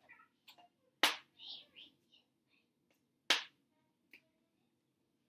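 Magnetic letter tiles clicking onto a whiteboard as they are slid into place to spell a word: two sharp clicks about two seconds apart, then a fainter third.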